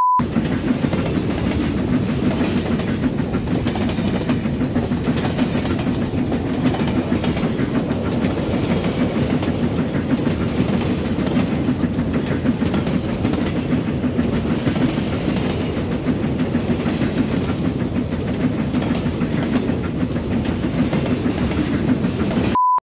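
Loud, continuous rumbling and rattling noise, heaviest low down, that starts and stops abruptly, with a short high beep at the very start and again just before it cuts off near the end.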